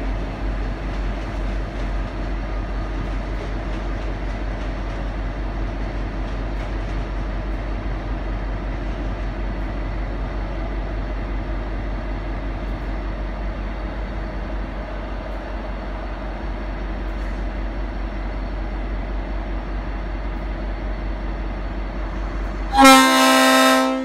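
Diesel locomotive of a V/Line N class idling at the platform with a steady low rumble. About a second before the end, its Leslie RS5T five-chime air horn sounds one loud, sustained chord.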